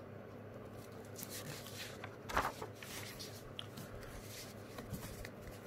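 Faint paper rustling and scraping as a handwritten sheet is turned over to a blank page, with one short louder rustle about two and a half seconds in.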